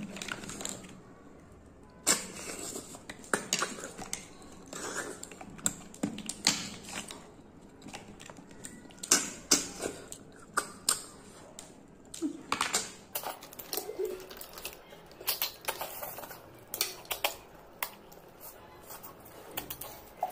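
Close-miked mukbang eating sounds: chewing and crunching with irregular sharp clicks and mouth smacks as snails and raw vegetables are eaten.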